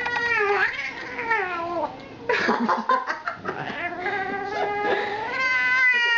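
Long-haired cat yowling in protest while its matted fur is being cut. There are two long, wavering yowls with a short noisy break between them.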